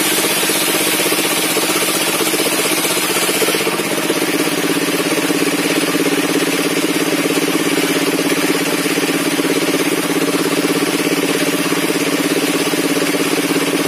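Sawmill table circular saw rig running steadily. A high hiss drops away about four seconds in, and the lower running sound grows stronger after that.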